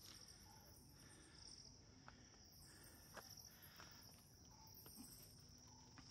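Faint, steady high chirring of insects in woodland, with a few light ticks and clicks scattered through it.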